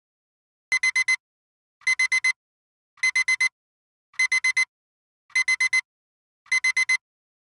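Timer alarm going off as the countdown runs out: an electronic alarm-clock beep, four quick high-pitched beeps per group, the groups repeating a little less than once a second. It starts suddenly out of silence about a second in.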